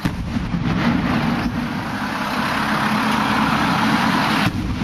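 Aerial firework shells bursting overhead: a sudden bang at the start, then a loud continuous rumble that stops suddenly about four and a half seconds in.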